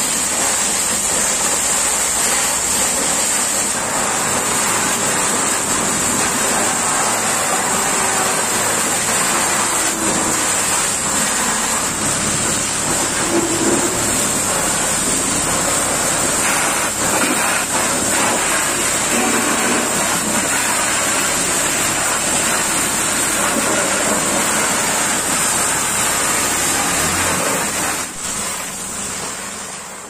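High-pressure water jets spraying hard onto a Cat 24 motor grader's steel frame, blade and tyres: a steady, loud hissing rush of water, with a faint low hum underneath. It fades out near the end.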